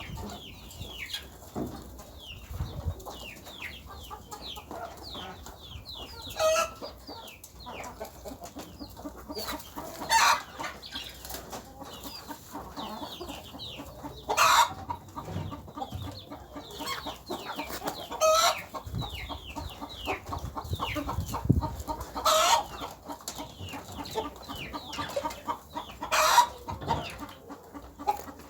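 A flock of chickens clucking and chirping steadily, with a louder call standing out about every four seconds.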